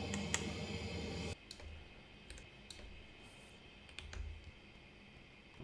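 A handful of short, scattered computer mouse clicks over quiet room tone. A steady machine hum at the start cuts off abruptly a little over a second in.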